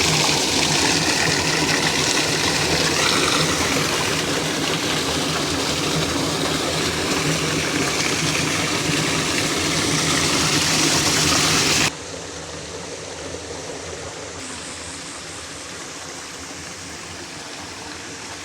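Steady rushing of stream water. It drops suddenly to a quieter, thinner rush about two-thirds of the way through.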